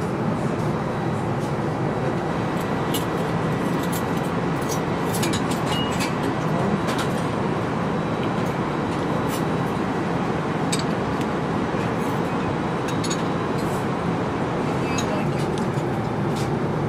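Steady rushing cabin noise of an Airbus A350 airliner in flight, with a faint steady whine. Over it come scattered light clinks of a metal spoon against a china soup bowl and plates.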